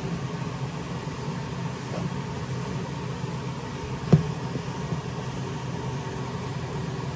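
Steady mechanical hum, with one sharp knock about four seconds in as a hand reaches into a plastic tub of wood-shaving bedding.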